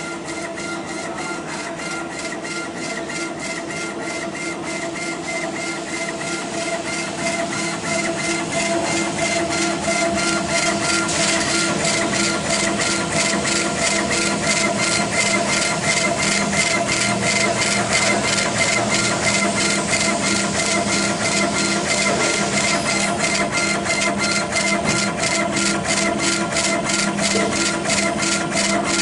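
Laser engraving machine raster-engraving a granite slab: the laser head shuttles back and forth, its stepper motors driving an even stroke about three times a second over a steady machine hum. The strokes grow louder and more distinct over the first ten seconds.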